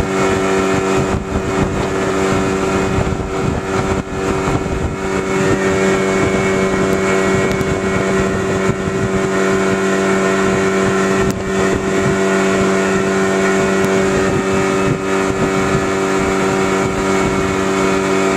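A small boat's motor running at a steady speed, a constant drone that holds one pitch throughout.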